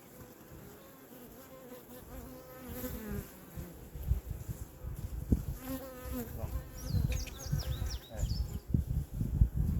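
Honeybees buzzing at the hive, a droning hum whose pitch wavers as bees fly close past the microphone. From about four seconds in, low rumbling thumps on the microphone grow louder and cover the buzz, and a bird gives a few quick falling chirps near the end.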